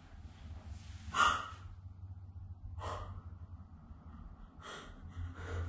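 A woman's sharp gasp about a second in, followed by a few softer breaths, over a low steady hum.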